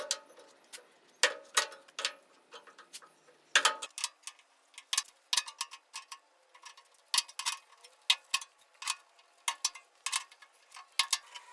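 Hand hole-punch tool (a joggler/edge setter used on its punch side) clicking and snapping as it punches holes along the edge of a sheet-steel floor pan, in an irregular run of sharp clicks.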